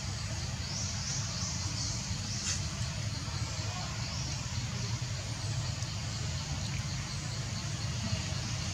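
Outdoor ambience: a steady low rumble under a high-pitched buzzing that comes in repeated short phrases every second or two, with a single faint click about two and a half seconds in.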